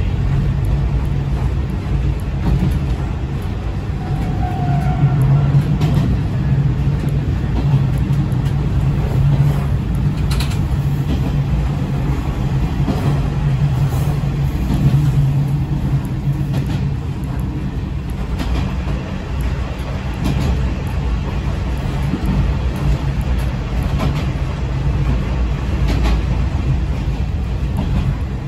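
Diesel railcar running along the line: a steady engine drone over the low rumble of wheels on rail, with a few faint clicks from the track.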